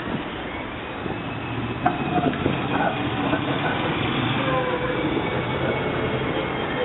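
Articulated tram reversing slowly past on street track: steel wheels rolling over the rails and points, with a sharp click about two seconds in followed by a run of knocks, and a thin high wheel squeal that builds as it curves.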